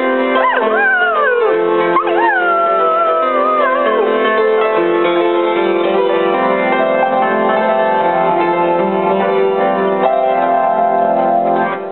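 Collie howling along to music: three or four falling howls in the first few seconds, then the music plays on without him and stops near the end.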